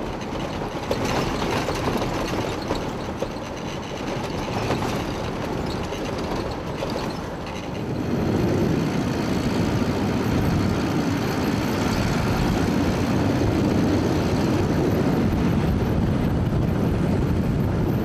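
SUV driving fast on a dirt road: steady rumble of tyres on the gravel track and engine, with wind rushing over the microphone. It gets louder and heavier about halfway through.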